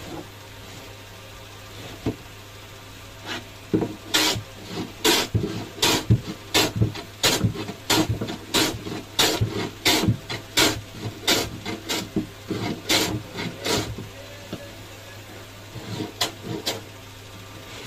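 Metal hand plane shaving the wooden edge of a speaker cabinet, in quick rasping strokes about two a second for some ten seconds, then a pause and a few more strokes near the end.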